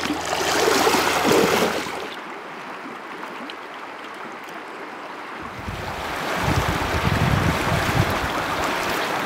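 River current flowing with a steady rush. About halfway through, wind blowing across the microphone adds a low rumble and the sound gets louder.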